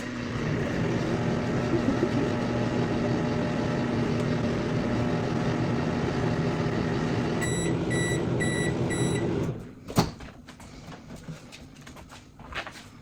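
Microwave oven running with a steady hum. Near the end, five short high beeps sound and the hum stops. A sharp click follows about ten seconds in.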